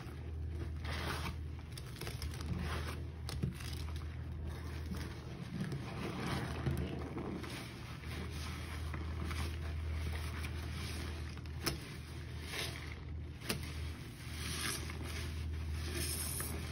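Rubber-gloved hands squeezing and working a sponge in a basin of foamy detergent-and-bleach water: wet squelching and sloshing with frequent short slaps. A steady low hum runs underneath.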